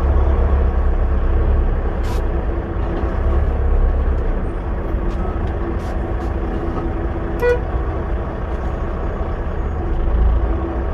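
Semi truck's diesel engine running, a steady low rumble heard inside the cab. A brief pitched tone sounds about seven and a half seconds in.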